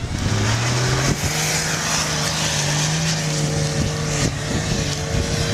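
4x4 SUV engine revving hard under load while driving through snow. Its pitch steps up about a second in and then holds steady.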